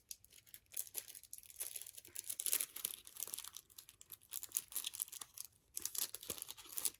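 Packaging being handled and pulled open, crinkling and rustling in irregular crackles.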